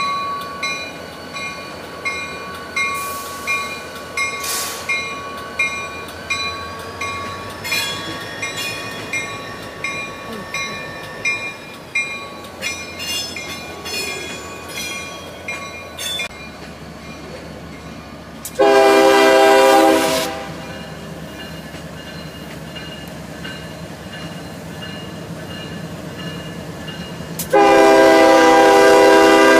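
Norfolk Southern ES40DC diesel locomotive's air horn sounding for a crossing as the train approaches: one blast of about a second and a half about two-thirds of the way in, then a longer blast starting near the end. Before the horn, a metallic ringing pulses about twice a second and stops about halfway through.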